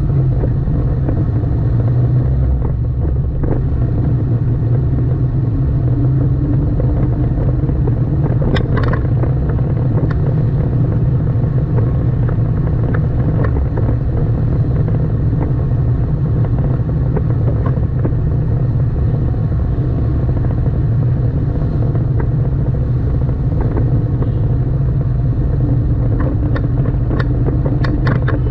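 Steady low rumble of a car driving through city streets: engine and road noise, with a few faint short ticks about a third of the way in and near the end.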